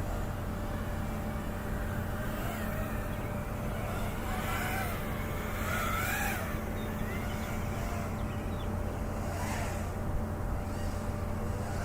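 FPV quadcopter motors whining over a steady low hum, the pitch rising and falling with the throttle, most clearly about four to six seconds in and again near the end.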